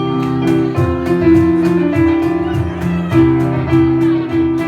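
Loud music with a keyboard-like melody of held notes over a bass line and a steady beat.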